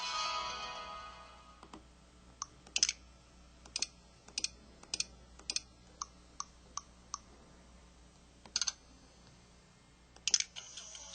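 LG-SV420 mobile phone's built-in effect sounds: a short electronic tune fades out in the first second or so, then about a dozen short key clicks and beeps sound at irregular intervals. Another tune starts near the end.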